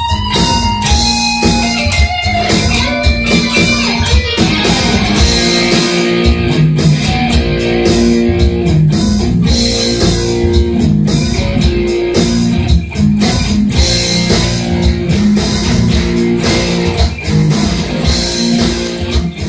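Electric guitar playing a rock lead line of held, sustained notes over a backing track with drums and bass guitar.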